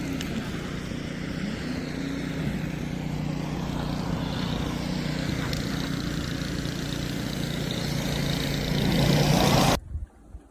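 Motor vehicle running: a steady engine hum under road noise, growing a little louder and then cutting off suddenly near the end.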